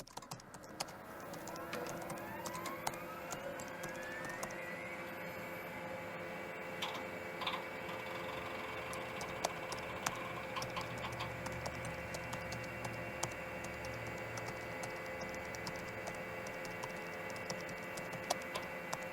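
A machine's whine rising in pitch over the first few seconds as it spins up, then running steadily, with scattered sharp ticks.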